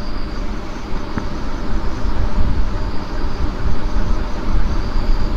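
Steady low rumbling background noise with no clear events, and a faint high tone that comes and goes.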